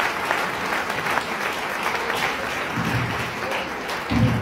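A congregation clapping their hands in applause, with two short low bursts about three and four seconds in, the second the loudest.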